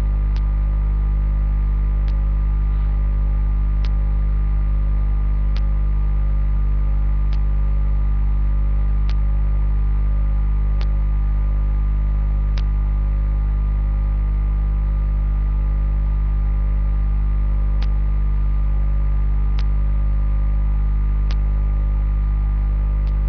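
Steady loud electrical mains hum with a stack of overtones, picked up in the recording, with faint sharp clicks repeating about every second and three-quarters.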